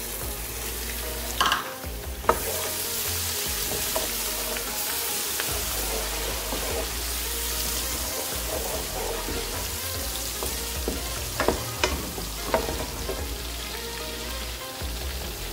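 Chopped onions and grated ginger-garlic sizzling steadily in a pan of hot oil as they brown, stirred with a spatula. A few sharp knocks of the utensils against the metal pan come about two seconds in and again around twelve seconds in.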